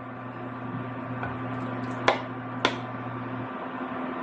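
Two sharp clinks of a utensil against a pot or bowl, about half a second apart, while stew is scooped, over a steady low hum that stops about three and a half seconds in.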